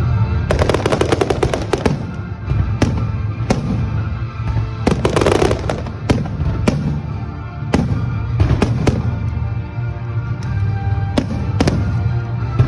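Aerial fireworks bursting, with two dense runs of rapid crackling and separate single bangs in between, over steady background music.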